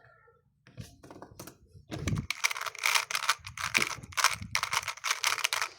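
Rubik's cube being turned fast: a few scattered plastic clicks, then from about two seconds in a rapid, continuous run of clacking turns.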